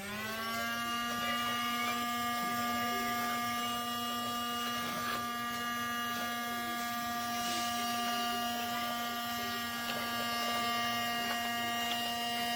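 Casdon toy Dyson cordless vacuum's small electric motor spinning up as it is switched on, then running steadily at one pitch.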